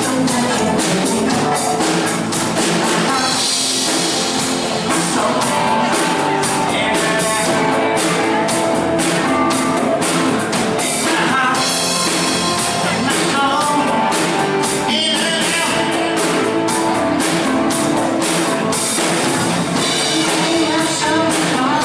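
A pop-rock song rehearsed at a sound check: a singer's vocal over drums and guitar, played steadily and loudly throughout.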